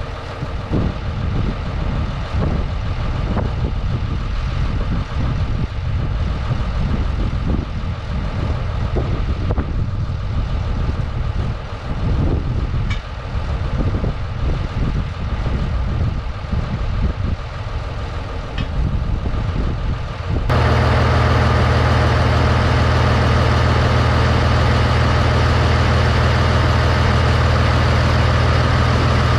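Ruston-Bucyrus 22-RB dragline's diesel engine idling, heard from outside the machine with gusty low rumbling over it. About twenty seconds in the sound jumps to inside the cab, where the engine is much louder and steady, with a deep hum.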